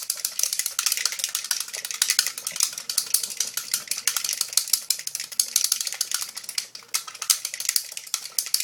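Folded paper slips being shaken and rattled inside a small metal tin, a fast continuous clatter of light clicks.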